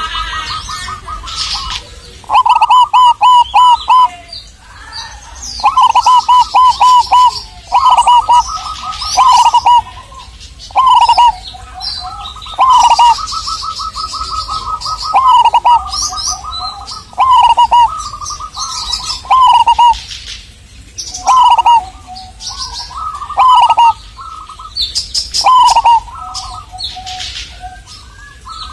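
Perkutut (zebra dove), a local wild-caught bird of the Pulanggeni type, singing over and over: loud rolling, staccato cooing phrases, each a second or so long, coming about every two seconds. Thin high chirps from small birds sound faintly in the background.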